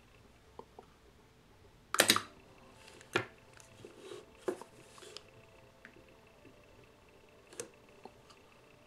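DIY 12-volt battery-powered spot welder firing 0.2-second pulses through hand-held electrodes onto 0.15 mm nickel strip on a nickel-cadmium cell: a sharp snap about two seconds in, the loudest, another about a second later, then a few fainter clicks.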